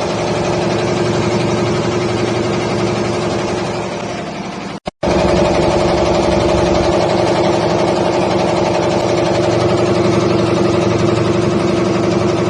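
Hot air roaster for corn flakes and puffs running, a loud steady machine drone with a constant hum. It cuts out for a moment about five seconds in and resumes slightly louder.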